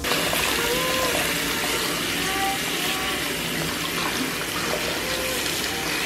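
Bath tap running steadily into a filling bathtub, the stream splashing over a hand that holds a bubble bar under it.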